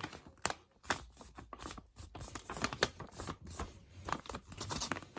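A sheet of paper being folded and creased by hand, an irregular run of short crisp rustles and crackles.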